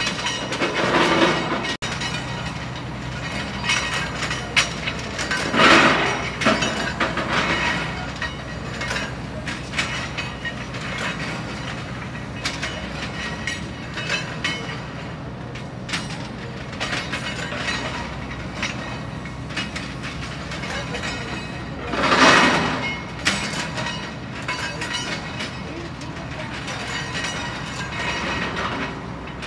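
Steel railroad tie plates clanking and clattering as a maintenance-of-way boom truck's electromagnet picks them up and drops them into its bin, over a steady low engine drone. Three louder clatters stand out: about a second in, around six seconds in and around twenty-two seconds in.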